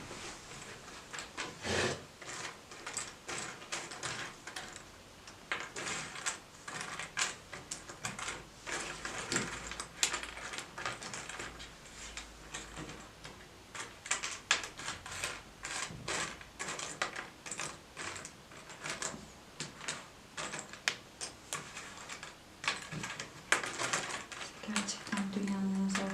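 A rapid, irregular run of light clicks and taps, like small hard objects being handled.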